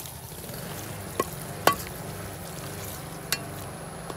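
Long stainless-steel spatula stirring chunks of beef in dark soy sauce in a large metal wok, over a steady sizzle from the pan. The spatula clanks sharply against the pan several times.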